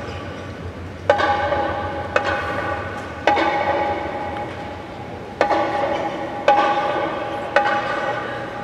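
Marching band playing loud accented chords: two sets of three sharp hits about a second apart, each chord held and fading away between hits.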